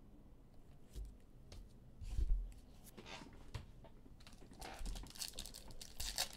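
Soft rustling, sliding and clicking of trading cards being handled and flipped through, with a louder rustle about two seconds in.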